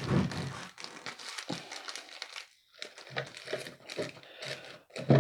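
Packaging crinkling and rustling in irregular handfuls as replacement crankshaft seals are handled and brought out.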